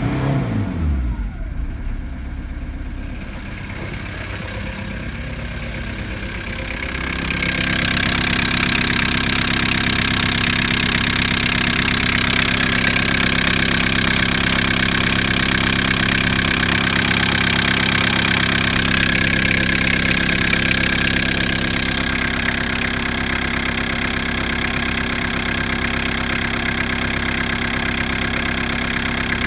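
VW T4 1.9 TD (ABL) four-cylinder turbodiesel running. A rev falls back to idle in the first second or two, then it idles steadily. About seven seconds in it gets louder and brighter, heard up close in the open engine bay.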